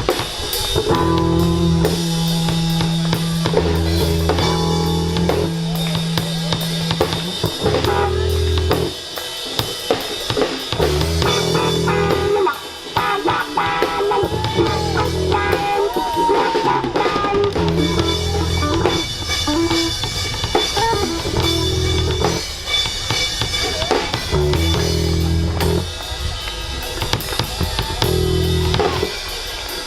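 Live rock band playing: a drum kit with kick and snare over sustained bass guitar notes and electric guitar.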